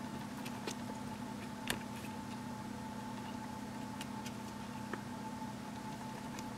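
Faint handling of a pair of plastic sunglasses: a few light clicks and ticks as the frame is turned in the fingers, the clearest one about two seconds in. A steady low electrical hum with a thin whine runs underneath.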